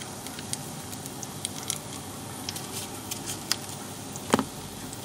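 Chicken wings sizzling in oil in a nonstick frying pan, with a steady hiss and scattered small crackles and pops. One louder knock comes about four seconds in.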